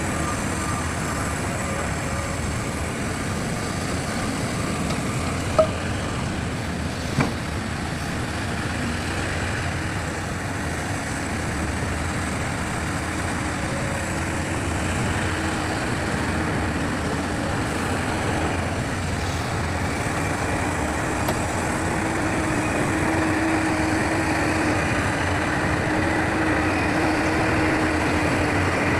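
Heavy diesel machinery of an excavator and dump truck working, running steadily and growing a little louder in the second half. A last reversing beep sounds right at the start, and there are two sharp knocks about six and seven seconds in.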